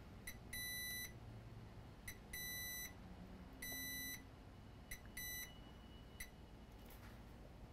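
Digital multimeter in diode-test mode beeping as its probe touches the ground pins of a chip: a string of short chirps and four longer beeps of about half a second, all on one high tone.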